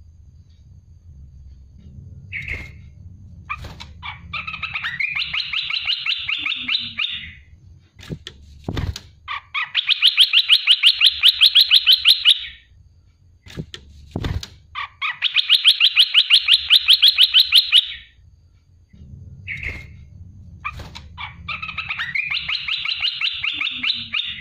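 Olive-winged bulbul song: four bursts of fast-repeated notes, each about two to three seconds long, the rapid 'shooting' phrases of the species. There are two sharp knocks between the bursts.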